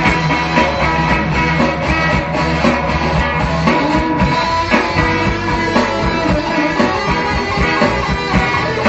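Live rock band playing steadily, with guitar and drums.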